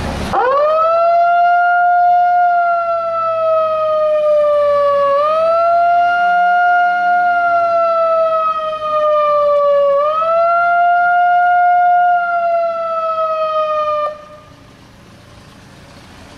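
A siren wailing: one pitched tone that climbs quickly, sags slowly for about five seconds, then swoops back up, three cycles in all, and cuts off suddenly near the end.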